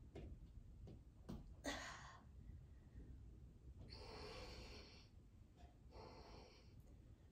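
Faint, effortful breathing of a yoga practitioner during handstand kick-ups: three breaths out, the middle one about a second long. A few soft knocks come in the first couple of seconds.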